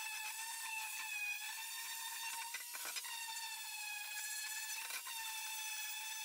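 Handheld electric sander running steadily as it sands an aluminium plate, giving a high motor whine. Its pitch dips briefly a couple of times as the pad is pressed harder onto the metal.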